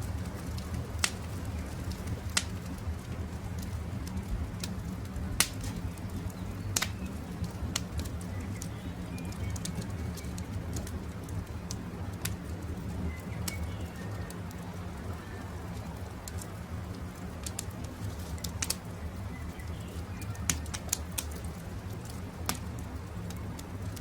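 Campfire crackling, with sharp pops every second or two over a steady low rumble of burning wood. Faint short bird chirps come and go over it.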